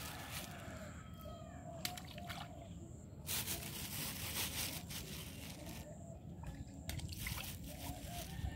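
Water sloshing and trickling at a pond's edge, with a few short splashy bursts.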